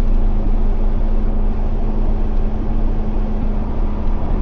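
Tractor engine running steadily under load while moving snow, with a constant low hum and rumble.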